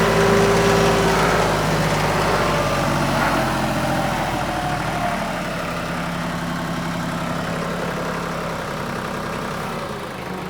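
TYM 2515H compact tractor's diesel engine running steadily at low speed, getting gradually a little quieter.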